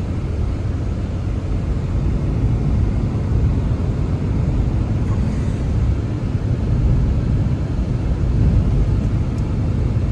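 Blizzard wind, a steady low rumble that swells and eases.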